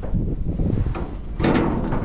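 Wind buffeting the microphone as a low rumble, with a louder gust or knock of handling noise about one and a half seconds in.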